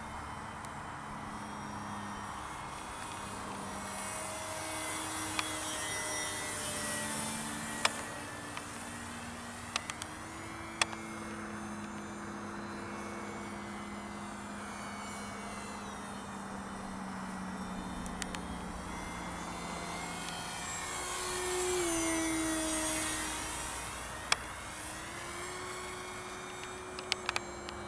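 Electric motor and pusher propeller of an RC foam parkjet model whining in flight. The pitch steps up and down with the throttle, and the sound swells twice as the model passes close.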